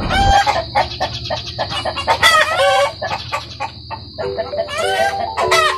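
A backyard flock of Brahma chickens clucking and calling, with many overlapping calls and a loud drawn-out call a little over two seconds in.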